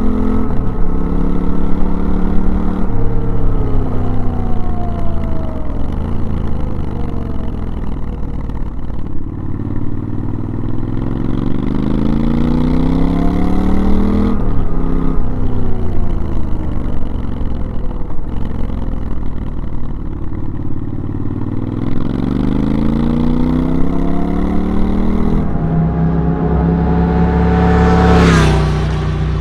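Triumph Scrambler 1200XE's 1200cc twin-cylinder engine running through a decatted open-pipe exhaust while riding. The revs fall and rise again several times as the throttle is rolled off and opened.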